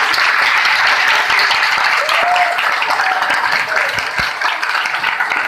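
Crowd applauding, a dense clatter of many hands clapping, with voices calling out over it.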